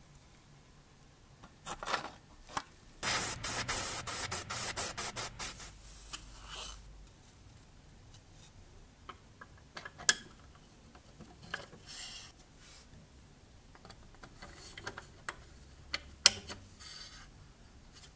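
Small parts of a diecast scale model car handled with gloved hands. About three seconds in there is a fast run of scraping strokes lasting a couple of seconds, followed by scattered sharp clicks of parts being fitted and moved.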